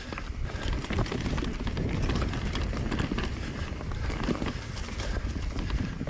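Mountain bike rattling and clattering over rough trail: a fast, irregular run of knocks from the wheels and frame over roots and stones, with a low rumble underneath.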